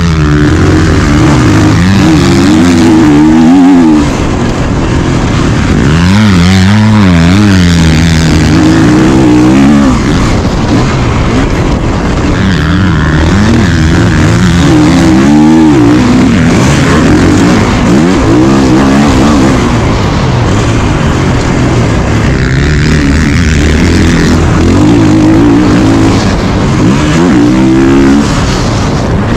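2022 Kawasaki KX450's single-cylinder four-stroke motocross engine running hard close up, its pitch climbing and falling every few seconds as the throttle is opened and rolled off.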